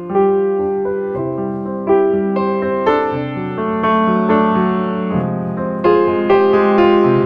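Background piano music: gentle notes and chords struck one after another, each ringing and fading before the next.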